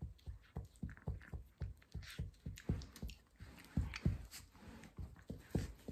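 Chihuahua licking a man's ear close to the microphone: a quick, even run of licks, about four a second.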